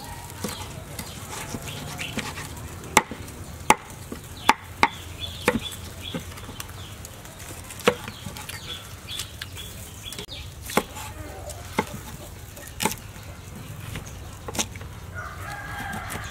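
Large kitchen knife chopping through roasted pork on a thick wooden chopping block: about ten sharp chops at irregular intervals, several close together a few seconds in, then more spaced out.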